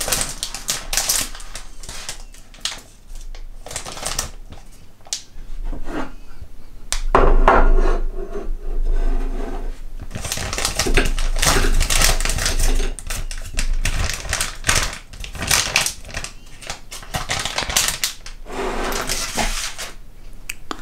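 Plastic Haribo gummy-candy bag being torn open and crinkled, then shaken so the gummies tumble out into a plastic tray. Irregular crackling and rustling, at its thickest in the middle.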